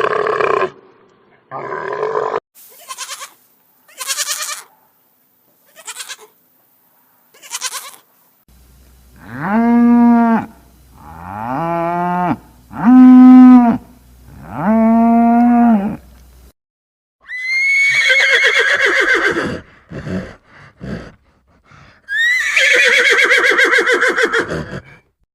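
A run of different animal calls: several short high-pitched calls, then four long arching calls from a farm animal, then two long calls that start high and slide downward.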